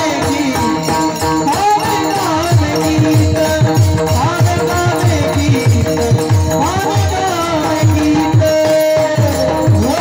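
Marathi devotional kirtan singing: a voice holding long, gliding melodic notes over a drum beating a steady rhythm, with small hand cymbals clashing on the beat.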